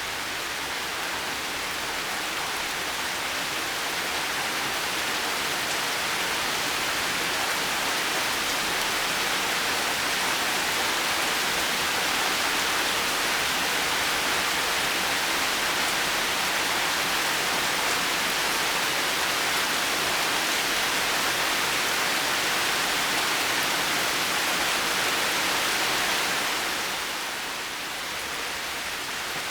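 Steady heavy rain, an even hiss, swelling slightly over the first few seconds and easing a little near the end.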